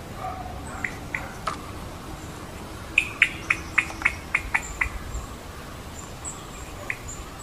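Indian giant squirrel (Malabar giant squirrel) calling with short, sharp notes: two or three single calls in the first second and a half, then a quick run of about eight calls, roughly four a second, a little past the middle, and one more near the end.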